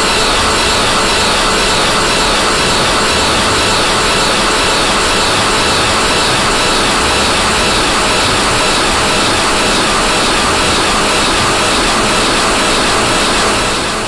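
Loud, steady wash of rasping noise with a faint repeating grain to it. It fades out near the end.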